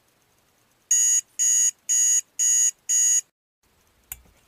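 Five short, high electronic beeps, evenly spaced at about two a second, then a single sharp click about four seconds in.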